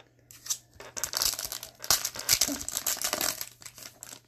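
Foil trading-card pack wrapper crinkling as it is torn open and pulled off the cards: a dense crackle lasting about three seconds, starting about a second in.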